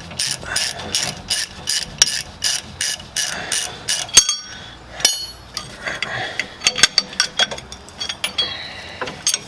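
Ratchet wrench clicking in steady strokes, about four clicks a second, on the clamped-down leaf spring pack's hardware, pausing midway. A metallic clink with a brief ring comes about four seconds in, and another shortly after.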